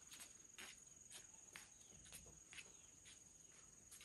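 Faint ambience of insects trilling in one steady high-pitched tone, with scattered soft clicks and knocks.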